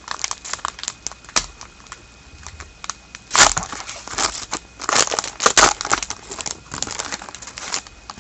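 Trading card pack wrapper crinkling and cards being handled, a run of short rustles and clicks with louder crinkles about three and a half and five seconds in.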